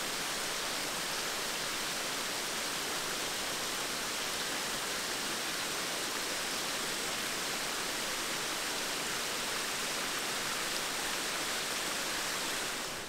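Steady, even rush of falling water from a waterfall, cutting off abruptly near the end.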